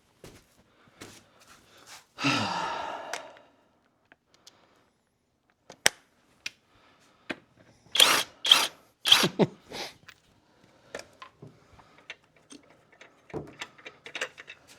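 Tool work during a truck tire swap: a short power-tool run of about a second, about two seconds in, then a quick cluster of five loud knocks around eight to ten seconds, with scattered small clicks and taps in between.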